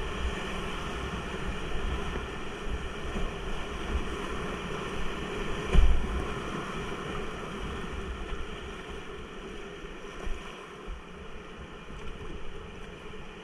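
Whitewater rapids rushing around a kayak, picked up by a GoPro's microphone. A loud thump and splash comes about six seconds in as the boat drops into a breaking wave. After that the rush eases as the water flattens out.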